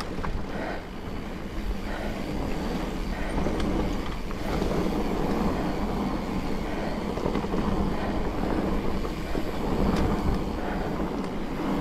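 Mountain bike rolling along a dirt trail: a steady rumble of tyres on the ground with scattered small knocks, and wind buffeting the microphone.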